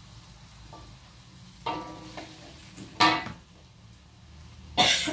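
Three short, sharp clatters of a spatula and utensils against a steel wok, over a faint steady hiss from the wok cooking on the gas stove.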